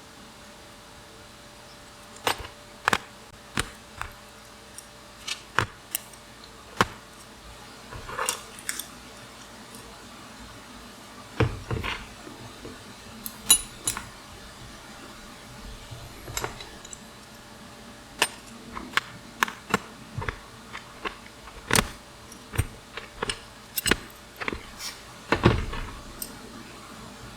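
Irregular metallic clicks, clinks and knocks of hand tools and small bicycle parts being handled and set down, some ringing briefly.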